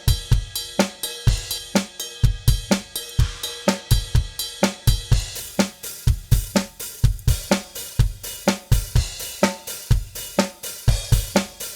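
DrumGizmo virtual drum kit playing a steady beat: kick drum, snare, hi-hat and cymbals, with the room and overhead tracks carrying simulated microphone bleed through reverb sends.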